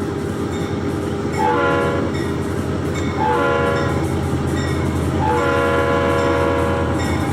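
Florida East Coast Railway locomotive air horn sounding three blasts, two short and then a longer one, over the steady low rumble of the passing train, which grows louder near the end.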